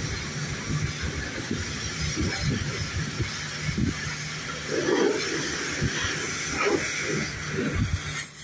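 Large boat-stacking forklift running, a steady low hum under a hiss, while it works a boat on its forks at the top of a storage rack.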